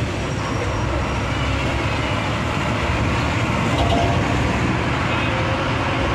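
Steady road noise from riding in a moving vehicle: a low engine and tyre rumble that runs evenly without separate events.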